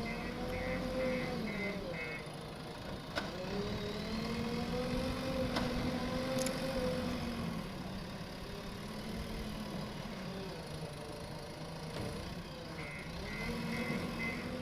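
Diesel engine of a JCB 3DX backhoe loader working under load, its pitch rising and falling several times as it is revved, with a few short knocks. A rapid beeping is heard at the start and again near the end.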